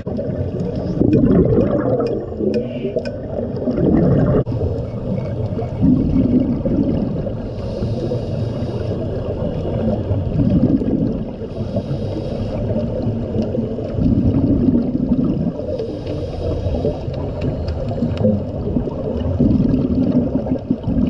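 Scuba regulator breathing heard underwater: exhaled bubbles gurgle and rumble about every four seconds, alternating with a fainter hiss of inhalation, all muffled. A few sharp clicks come in the first few seconds.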